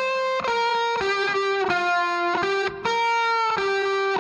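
Instrumental background music: a melody of single held notes, each changing pitch about every half second.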